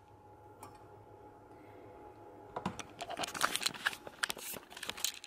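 A quiet steady low hum, then about halfway through a quick run of small clicks, knocks and rustles lasting a couple of seconds.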